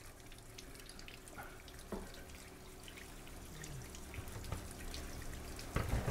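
Faint water dripping and trickling at a kitchen sink, with scattered light ticks and clicks.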